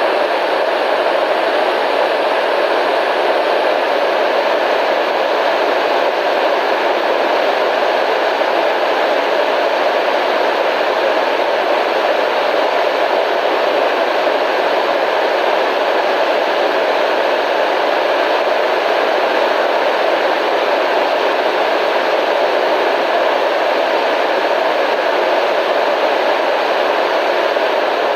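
Steady radio static: an even, unbroken hiss of noise, heavier in the mids and with little bass, that does not change.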